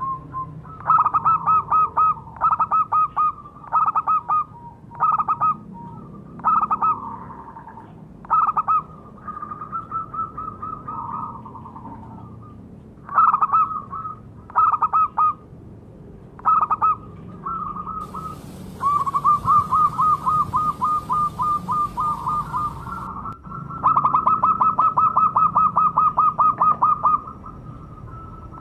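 Zebra doves (perkutut) cooing: short phrases of rapid staccato notes repeated over and over, with one longer run of about three seconds near the end. A high hiss joins in for about five seconds in the middle.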